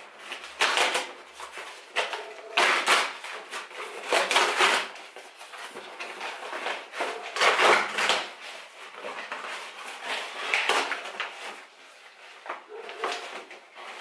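Cardboard shipping box being torn open by hand: a series of loud rips as the taped flaps and cardboard are pulled apart, with rustling and scraping between them.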